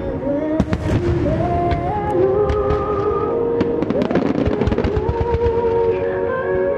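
Wide starmine fireworks going off in quick clusters of sharp bangs and crackles, over a slow melody played through loudspeakers to accompany the show.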